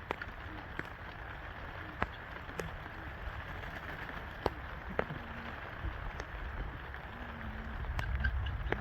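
Steady rain falling, with scattered louder drops striking nearby every second or two.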